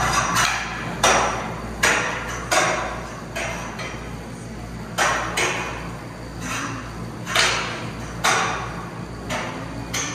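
Ninja obstacle grips and their metal hardware clanking against the overhead truss rig as an athlete swings from hold to hold. About a dozen sharp, ringing metallic clanks come at irregular intervals, roughly one every second or less.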